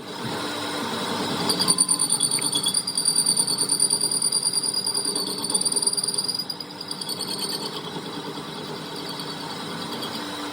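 A workshop power tool running with a steady high whine from about two seconds in until near eight seconds in, over a fast rattling clatter of metalwork.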